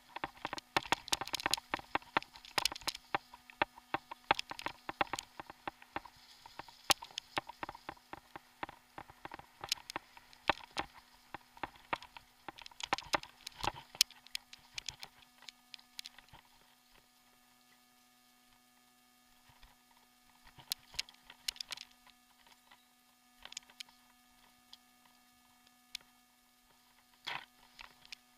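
Mountain bike rattling and clattering over a bumpy dirt singletrack, a stream of irregular clicks and knocks that is dense for the first half and thins out after about sixteen seconds. A steady faint low hum runs underneath.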